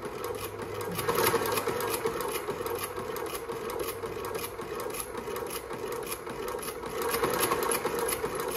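Consew 29 cylinder-arm shoe-repair sewing machine, belt-driven by an industrial motor, stitching through leather at a steady, unhurried pace. It picks up about a second in and again near the end. The machine is not yet oiled, so it is not being run hard.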